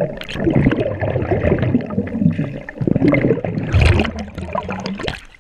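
Water bubbling and sloshing around an underwater camera, with dense crackles and low rumbling, then splashing as the camera breaks the surface; the sound dies away just before the end.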